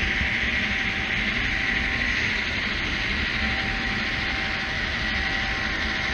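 HO scale model train running along the track: a steady hiss and rumble of wheels and motor, heard from a camera car riding the train.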